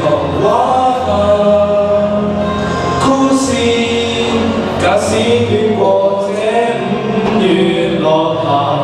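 A solo voice singing a slow song in long, held notes over backing music.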